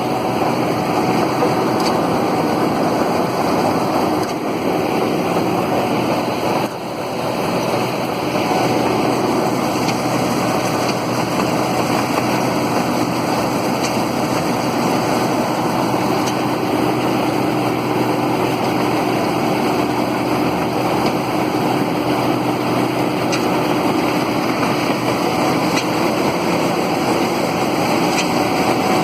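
New Holland TF44 combine harvester running steadily while harvesting rice, with a constant engine and machinery drone and a few steady tones, dipping briefly about seven seconds in.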